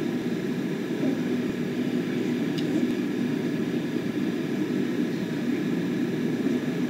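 Steady low rumbling background noise with a faint hum and no speech: the room tone of a quiet pause.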